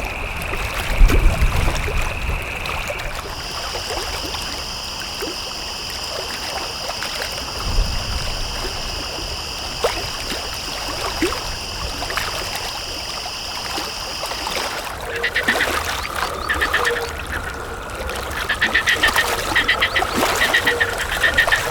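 Outdoor animal soundscape. Steady high-pitched drones, which shift higher about three seconds in, run for the first fifteen seconds, with low thumps about a second in and near the eight-second mark. Then rapid pulsed animal calls in quick series take over.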